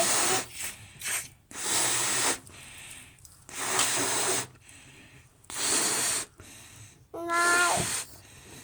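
A balloon being blown up by mouth: four long hissing puffs of breath about two seconds apart. Near the end comes a short, high, squeaky pitched sound.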